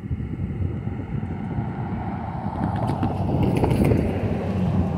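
A car driving past on the road at the crossing, its tyre and engine noise swelling to a peak about four seconds in and then easing, with some wind on the microphone.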